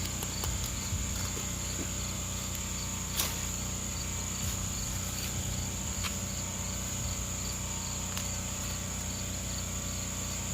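Insects trilling steadily outdoors in one continuous high-pitched tone with a faint regular pulsing beneath it. A single short click sounds about three seconds in.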